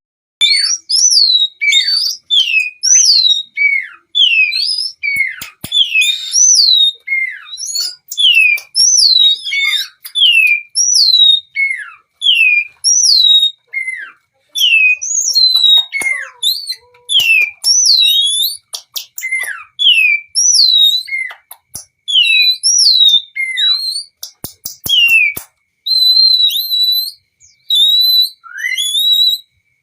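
Oriental magpie-robin singing: a long run of clear whistled notes, each sliding down in pitch, repeated over and over with short gaps, and a few dry clicks mixed in.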